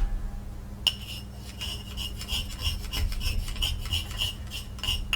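Metal tool scraping the inside of a small metal pan in quick repeated strokes, about three a second, starting about a second in: clearing out pewter stuck to the pan.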